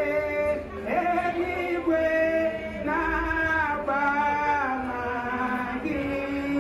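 A woman singing into a handheld microphone, a slow song of notes held for about a second each, with a long low note near the end.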